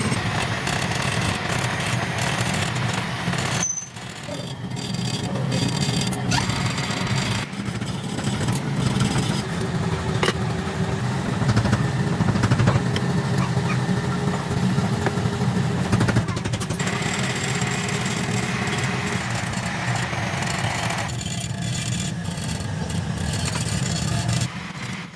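A motor running steadily, with the sound changing abruptly several times.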